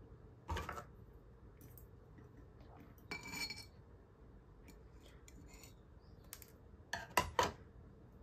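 Long metal tweezers clinking against a glass terrarium cylinder and the gravel inside it: a few scattered clicks, one with a brief glassy ring about three seconds in, and a quick clatter of two or three louder clicks near the end as the tweezers are laid down on the table.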